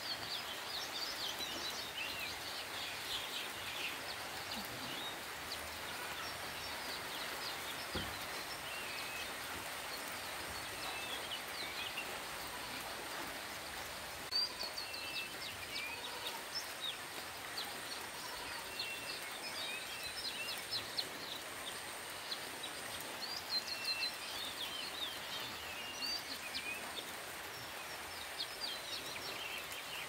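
Steady hiss of falling rain, with birds chirping in short calls throughout, more often in the second half.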